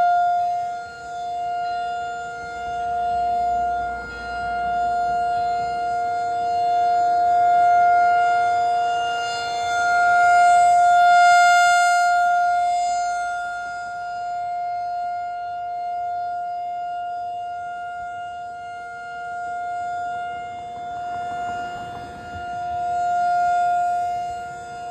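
Federal Signal 2001-SRN rotating outdoor warning siren sounding a steady-pitch full alert tone, swelling and fading in loudness every few seconds as the siren head rotates.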